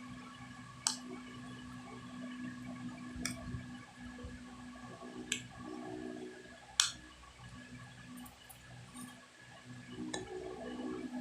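About five short, sharp clicks and taps, spaced a second or two apart, from small tools and phone parts being handled during a smartphone disassembly, over a steady low hum.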